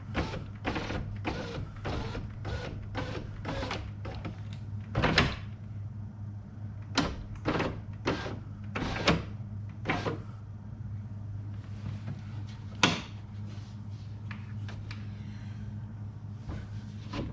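Scattered clicks and knocks of hand work inside a Jeep ZJ's front door, where the window glass is being worked on a damaged regulator, over a steady low hum.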